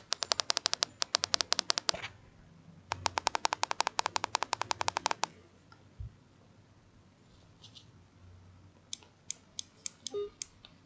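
Rapid, evenly spaced small clicks, about a dozen a second, in two runs of about two seconds each, then a handful of separate clicks near the end.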